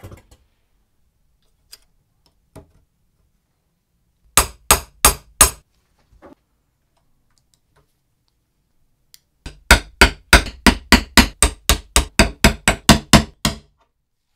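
A small hammer tapping metal fittings into a wooden board with sharp metallic strikes. There are four quick taps, then a steady run of about sixteen taps at roughly four a second near the end.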